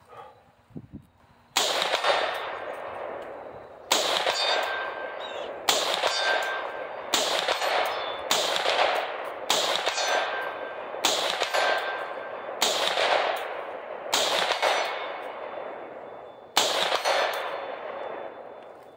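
Ten shots from a PSA PA-10 semi-automatic rifle in .308, fired at an uneven pace about one to two and a half seconds apart. Each shot trails off in a long echo, with the ring of hits on steel plates.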